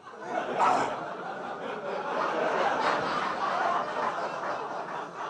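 Theatre audience laughing at a stand-up comedy bit, swelling about half a second in and carrying on steadily.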